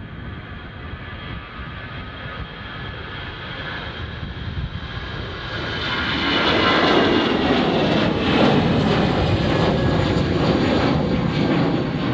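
Airliner engines at takeoff power, a steady roar that builds and is loudest from about six seconds in, with a high whine that falls slightly in pitch.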